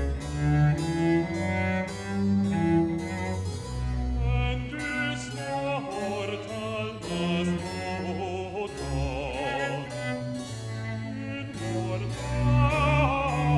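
Baroque orchestral music: strings and harpsichord continuo playing under a moving melodic line, in a passage without sung words.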